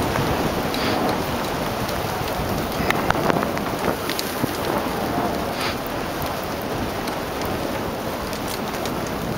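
Dog sled gliding over a snow trail behind a running team: a steady rushing hiss of the runners and paws on snow, with a few sharp clicks and knocks.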